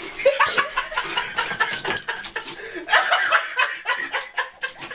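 People laughing and chuckling in short breathy bursts.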